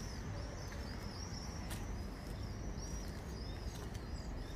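Small songbirds chirping: short, high, arched notes repeated two or three times a second, over a steady low background rumble.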